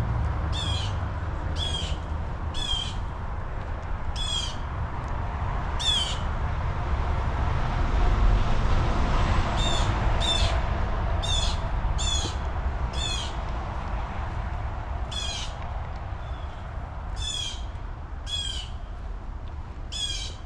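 Blue jays screaming: a series of short, harsh, loud calls, roughly one a second, with brief pauses about seven and fourteen seconds in, over a steady low background noise.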